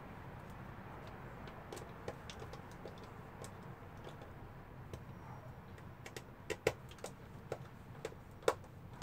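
Scattered light clicks and taps of hands and a small tool working on a 3D-printed plastic jig and its stencil as M3 bolts are tightened down, a few sharper clicks coming in the last three seconds. A faint steady low hum runs underneath.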